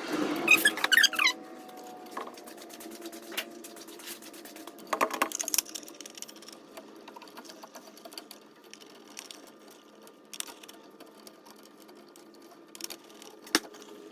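Scattered clicks and small knocks of hand tools and wire being worked while a fire alarm pull station is wired, over a faint steady hum. There are louder bursts of handling at the very start and about five seconds in.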